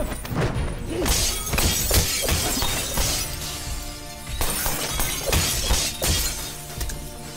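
Glass window panes shattering, with many sharp crashes and hits, over a film music score.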